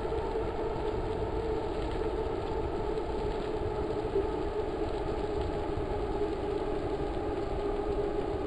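A vehicle running steadily, a constant low noise with no change in pitch or level.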